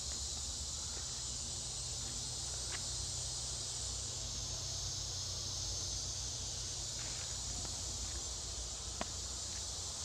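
Steady high-pitched insect chorus from forest insects, unbroken throughout, over a low rumble, with a few faint sharp ticks, the clearest about nine seconds in.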